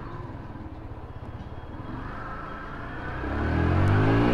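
Yamaha R15 V2's 150 cc single-cylinder engine running low, then revving up hard about three seconds in as the bike pulls away, getting loud with a rising pitch.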